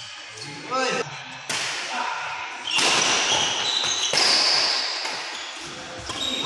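Badminton rally on an indoor court: several sharp racket strikes on the shuttlecock, with sneaker squeaks on the court floor and a brief voice, in an echoing hall.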